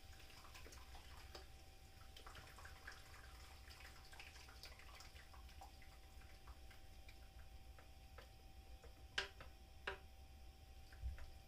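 Near silence over a faint steady tone, with faint scattered drips and ticks and two sharper clicks near the end.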